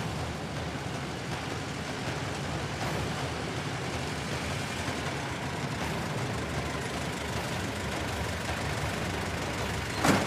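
Car engine running low and steady as the car rolls slowly along the street and pulls up, with a short sharp knock near the end.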